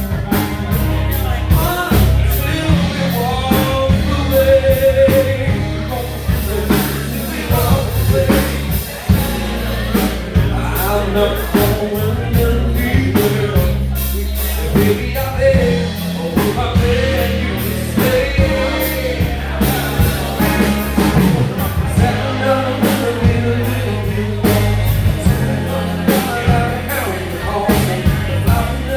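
A live rock band playing: drums and bass with a melodic lead line over them, an instrumental passage of the song.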